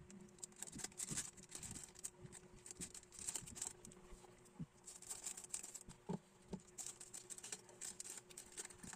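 Thin clear plastic polybag crinkling as it is handled by hand, with a few soft taps in the second half.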